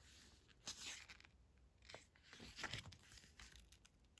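Faint rustling of glossy photobook pages turned by hand, in a few soft strokes.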